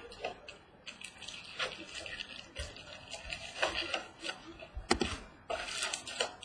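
Hands opening trading-card packaging, rustling and crinkling in irregular short bursts.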